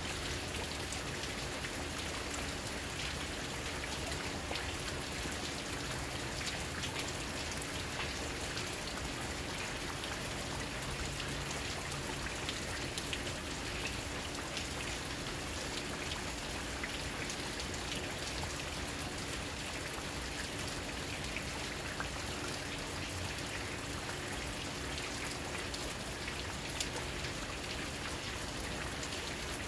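Steady rain falling, a continuous hiss of rain with the patter of many small drops ticking on surfaces close by.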